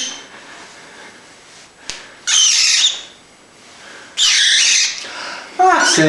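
Cockatiel giving two loud, harsh screeching calls, each under a second, about two seconds apart. A person's voice starts near the end.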